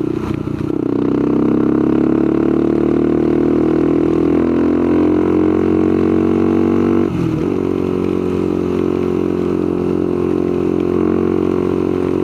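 Honda 400EX ATV's single-cylinder four-stroke engine running under way. Its note climbs slowly for several seconds, dips briefly about seven seconds in, then holds steady.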